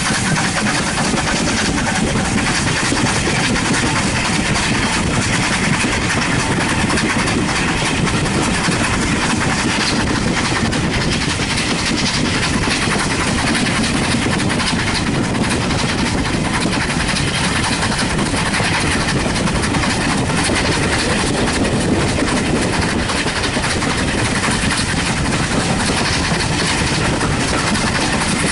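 Steam-hauled heritage train running along the line: a steady rumble and rail noise that keeps an even level throughout.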